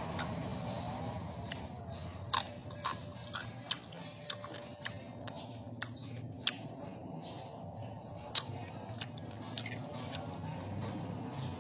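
Close-up eating sounds of roast pig (lechon) being chewed and picked apart by hand. Sharp crackling clicks come at irregular intervals, the loudest about two and eight seconds in, over a steady low hum.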